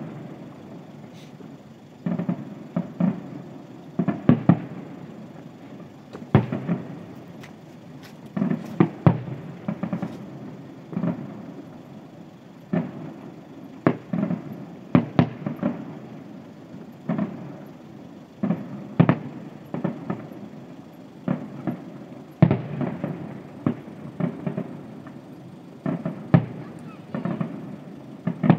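Distant fireworks display: aerial shells bursting in a steady series of bangs, one every second or two, each trailing off in an echo.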